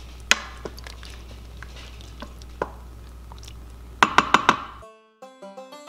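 Wooden spoon stirring thick stew in a stainless steel Instant Pot inner pot, with occasional light knocks against the pot and a quick run of about five ringing knocks about four seconds in. The room sound then cuts out and plucked banjo-like music starts near the end.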